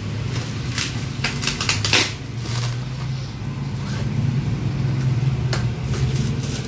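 Black plastic wrapping being torn off a box by hand: a cluster of sharp rips and crinkles in the first couple of seconds, the loudest about two seconds in, and another rip about five and a half seconds in. A steady low hum runs underneath.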